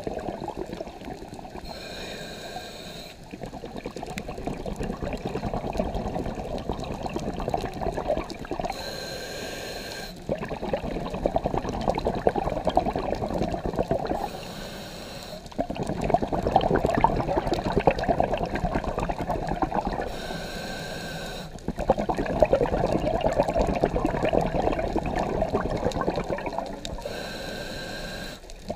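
Scuba diver breathing through a demand regulator, heard underwater: about five slow breaths, each a short hissing inhale with a faint whistle, followed by a longer, louder rush of exhaled bubbles.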